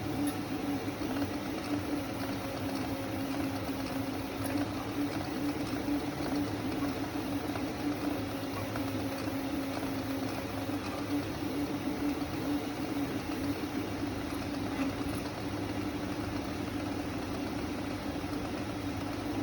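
DIY 3D printers running, giving a steady mechanical hum.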